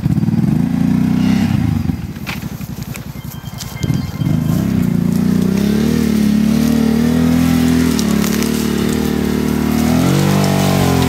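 Off-road vehicle engine running close by and revving under load: its pitch climbs in the first second, drops back for a couple of seconds, then holds high with rises and falls.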